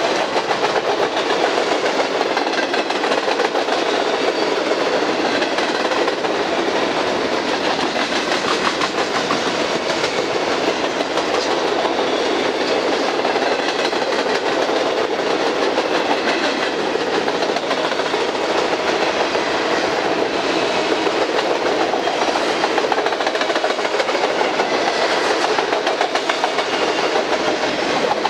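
A string of tri-level auto rack freight cars rolling past close by, with steel wheels clicking over the rails in a steady, unbroken rumble.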